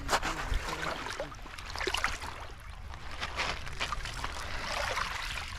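Small waves washing over a pebble shore at the water's edge, with footsteps crunching on the pebbles every second or so.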